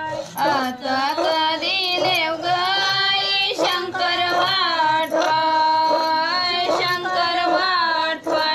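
A high female voice singing a drawn-out traditional song with long, wavering held notes: the song sung to send off the goddess Gauri at the close of Ganesh festival.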